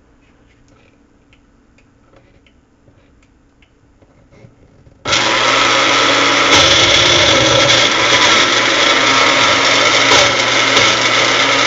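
Elite personal blender, its cup pressed down onto the motor base: the motor starts suddenly about five seconds in and runs loud and steady, blending a fruit smoothie that is too thick for lack of liquid. A few light handling clicks come before it.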